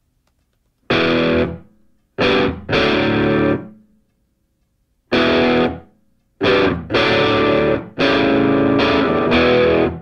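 Outro music: distorted electric guitar chords played in short bursts with silent gaps between them.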